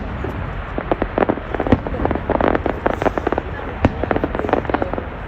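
Fireworks going off in a rapid, irregular string of sharp cracks and bangs.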